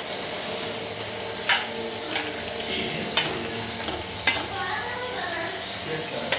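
Chicken curry sizzling in a pan while a spoon stirs it, with a few sharp clinks of the spoon against the pan.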